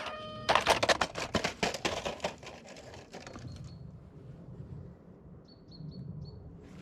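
An RC truck's electric motor whine cuts off, then rapid clattering and knocking of the hard-bodied truck on rock, dying away over about three seconds. Four short, faint high chirps follow near the end.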